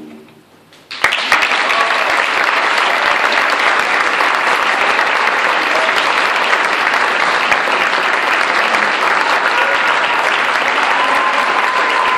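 The fading tail of a choir's final chord, then about a second in an audience starts applauding, loud and steady.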